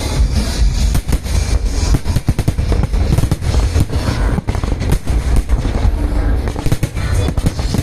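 Aerial fireworks bursting in a dense, rapid run of overlapping bangs and crackles.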